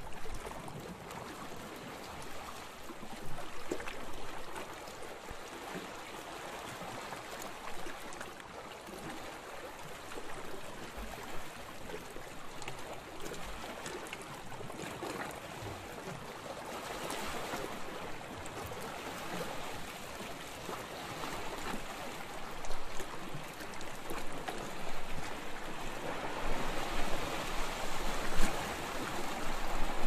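Ocean waves: a steady wash of moving water. It swells briefly a little past halfway and grows louder toward the end.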